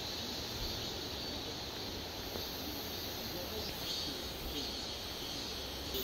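Summer forest ambience: a steady high buzz of insects that swells and fades, with faint voices of people talking in the distance.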